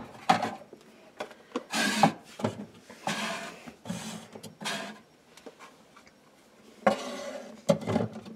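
Clear plastic food-storage containers being slid, stacked and set down on a wooden cabinet shelf: several short scrapes and light knocks, with a quiet pause of about two seconds late on.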